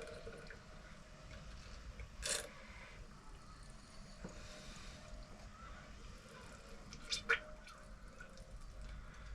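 Fork oil bubbling and squelching inside a KYB open-chamber fork as the damping rod is pumped by hand, pushing the trapped air out of the cartridge. Faint throughout, with a few short louder gurgles, one about two seconds in and a pair about three quarters of the way through.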